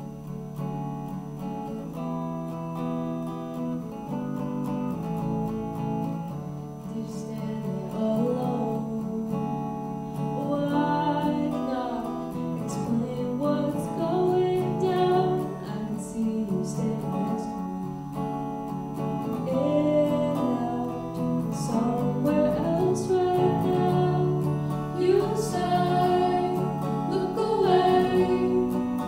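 A live rock band playing a song on electric guitar, bass guitar and drums. Female vocals come in about ten seconds in and carry on over the band.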